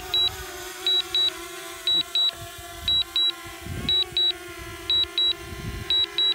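A drone's remote controller sounding a high double beep about once a second, the alert it gives while the drone returns to home and lands. Beneath it the drone's propellers hum steadily as it descends close by.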